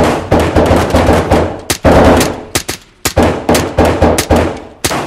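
Gunfire in a night raid scene: a rapid, dense volley of shots that thins after a couple of seconds into separate shots and short bursts, each with a ringing tail.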